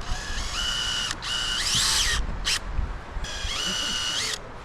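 Small electric power-tool motor, like a cordless drill, whining in trigger bursts. Each of two long runs spins up, holds a steady pitch and then speeds up before stopping, with a short blip between them. Low wind rumble on the microphone underneath.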